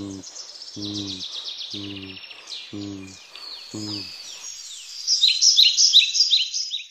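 Birds singing: dense, rapid chirps and trills repeated over and over, getting louder about five seconds in. Under them for the first four seconds a low, steady-pitched hum pulses about once a second.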